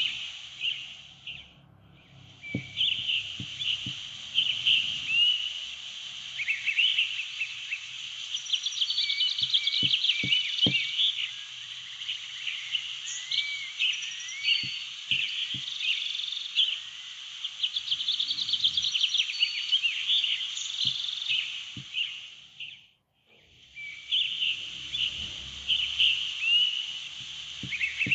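Background nature recording of many small birds chirping and twittering in quick rising and falling notes. It drops out briefly about two seconds in and again about five seconds before the end.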